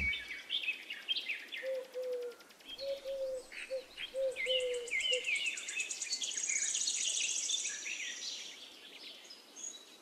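Forest birds chirping and calling all around, with a string of short low whistled notes from about two to five seconds in. A high, rapidly pulsing insect buzz runs underneath, strongest near the end.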